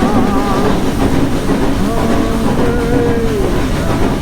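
Nilgiri Mountain Railway toy train running, the carriage rumbling and clattering steadily on the rails.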